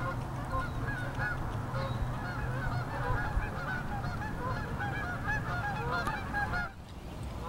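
A flock of geese honking, many calls overlapping in a continuous clamour, with a short lull near the end.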